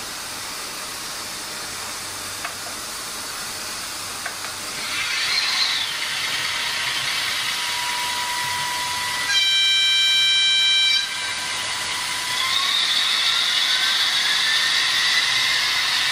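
Sound decoder of an H0m Rhaetian Railway model train: a hiss, then a horn sounding for about a second and a half near the middle, then a whine rising steadily in pitch as the train pulls away.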